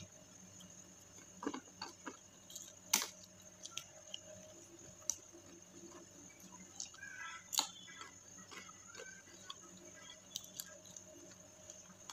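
Close-up eating sounds: chewing crispy fried chicken skin and rice eaten by hand, with scattered sharp clicks and crunches, the loudest about three seconds in and again past seven seconds, over a faint steady hum.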